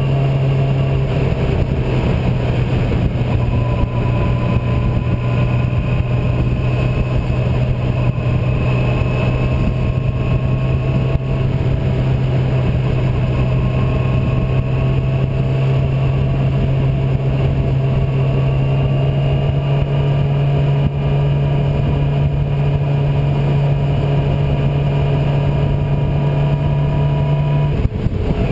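Yamaha R6's inline-four engine running at a steady cruising speed with wind rush over the microphone, its pitch holding nearly constant, with a brief break near the end.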